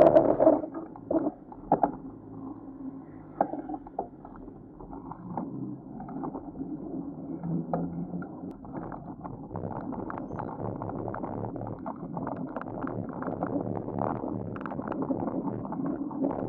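Muffled wind and road noise from a bicycle riding through street traffic, with wind on the microphone. There is a loud burst at the start and a few sharp knocks in the first few seconds, then a steady rumble.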